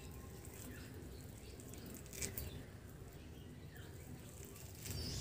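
Quiet background with a few faint, scattered bird chirps and one short knock about two seconds in.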